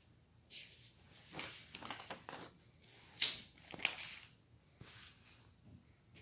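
Paper and a book being handled: a run of short, irregular rustles and scrapes as a notebook page is moved aside and a textbook is slid into place, loudest about three seconds in.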